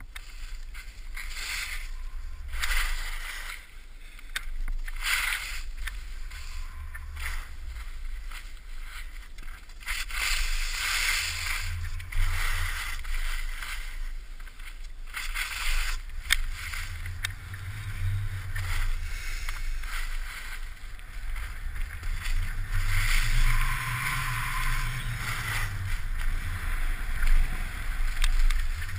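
Skis hissing and scraping over packed snow in downhill turns, in surges every second or two, with wind rumbling on a pole-mounted GoPro Hero's microphone.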